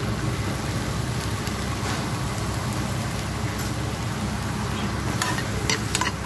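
Shallots, garlic and ginger dry-roasting in a nonstick pan on a gas stove: a steady low rumble with a faint hiss, and a few clicks of a spatula against the pan near the end.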